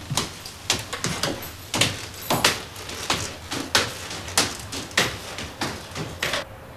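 Footsteps of two people climbing a staircase in hard shoes: a steady series of knocks, about three a second, that stops shortly before the end.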